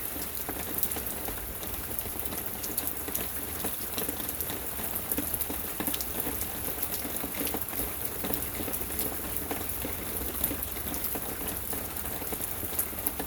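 Steady hiss with many small, irregular ticks scattered through it: a dense patter.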